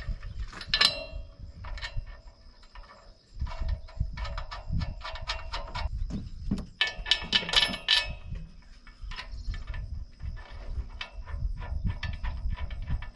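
Ratchet wrench clicking in quick runs as bolts are tightened, the densest run about halfway through.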